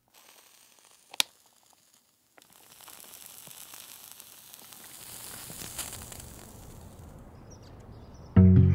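A light switch clicking once about a second in, then a faint crackling hiss that slowly grows louder; plucked guitar music starts near the end.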